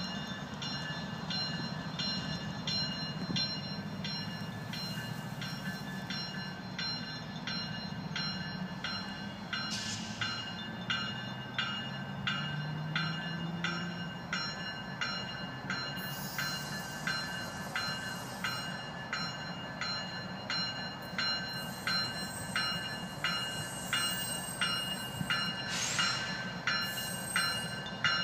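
A bell ringing in a steady, regular rhythm over the low running of an approaching Florida East Coast Railway diesel locomotive; the bell strikes grow louder near the end as the train draws closer.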